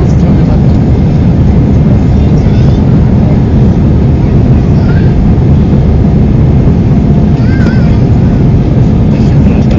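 Steady loud roar of an airliner's cabin in flight: engine and airflow noise heard from inside by a window seat, heaviest in the low end.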